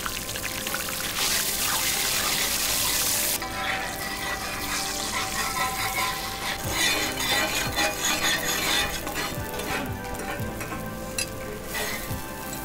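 A batter mixture sizzling on a large hot iron griddle as it is poured and spread with a long-handled ladle, with a loud hiss for about two seconds near the start. Background music plays under it.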